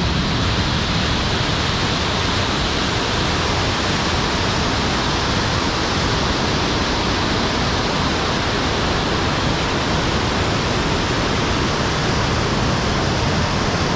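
Steady rush of whitewater rapids close by: a dense, even water noise that does not change.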